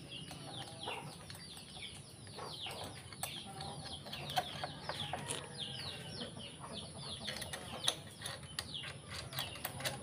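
Faint birds chirping steadily, with scattered light clicks and taps of a handlebar riser bolt and small metal parts being handled.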